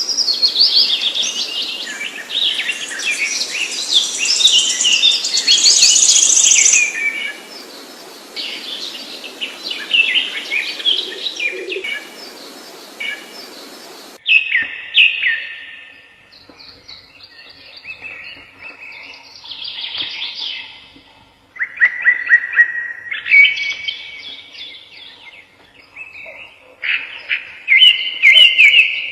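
Songbirds singing and chirping: a dense run of high, rapid chirps over a steady hiss, then about halfway through a change to a cleaner recording of separate, repeated song phrases.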